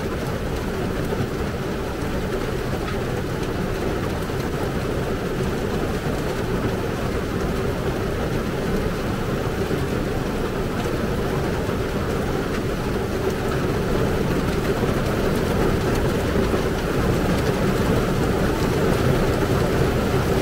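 Heavy rain falling steadily on the car's roof and the ground outside, a constant downpour heard from inside the parked vehicle.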